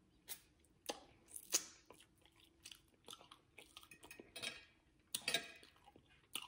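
A person chewing food close to the microphone, with irregular wet mouth smacks and clicks. A few are louder, about one and a half seconds in and again around five seconds in.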